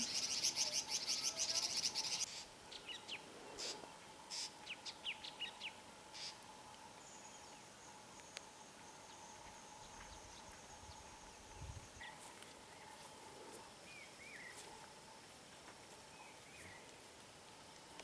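Wild birds calling. A loud, rapid insect buzz, like a cicada's, cuts off about two seconds in. A quick run of short, sharp bird chirps follows, then a few faint chirps later over a steady faint tone.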